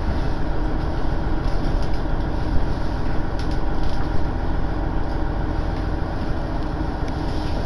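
Steady rumble of a diesel railcar running, heard from inside the passenger cabin.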